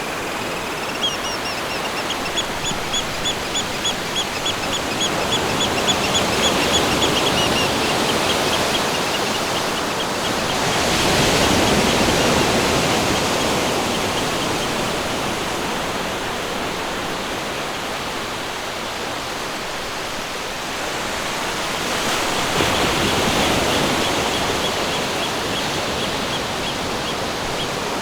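Steady rushing water with a swell about a third of the way in and another near the end, under a bird repeating a rapid series of high chirps for several seconds at the start and again near the end.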